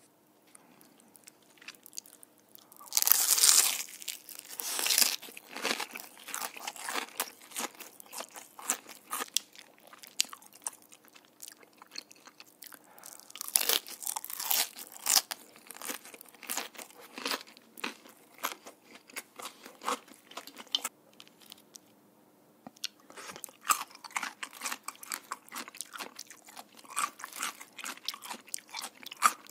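Close-miked bites into the crispy crust of Korean market-style fried chicken, dipped in sauce, with the batter crunching and crackling under the teeth and then being chewed. The loudest crunching comes about three seconds in and again around fourteen seconds, with a short lull shortly after twenty seconds before the chewing picks up again.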